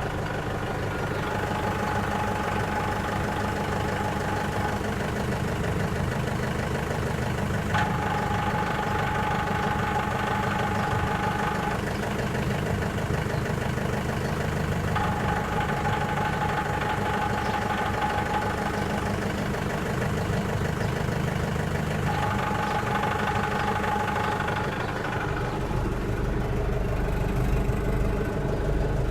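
LOVOL 504 tractor's diesel engine idling, with a steady high-pitched tone from the power take-off shaft area. The tone comes and goes four times, each time for about four seconds. This foreign noise goes away when the clutch is pressed to its second position to disengage the PTO. Near the end, the engine note deepens.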